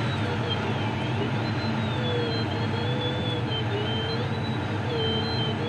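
Steady rush of airflow around a Grob 102 Club III glider's cockpit, with the audio variometer's continuous tone sliding up and down in pitch as the climb rate changes while the glider circles.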